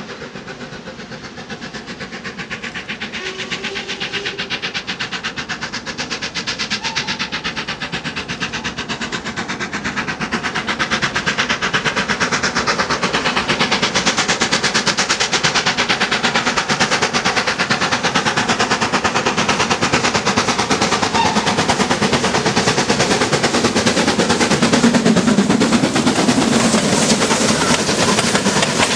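Steam locomotive hauling a passenger train, approaching and then passing close by. Its rapid, even exhaust beats and the running of the train grow steadily louder as it nears.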